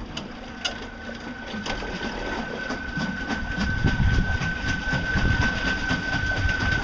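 Golden Motor L-05 electric outboard motor running with a steady high-pitched whine that sets in about half a second in. Under it a low rumble of water and hull builds louder, with a rapid clatter of clicks.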